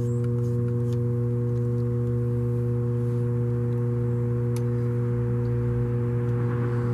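A loud, steady hum on one low pitch with several even overtones, unchanging throughout.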